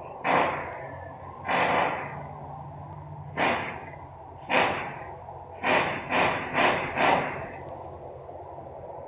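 Industrial noise: eight sharp, noisy bangs or blasts, each fading within about half a second, the last four in quick succession, over a steady low hum.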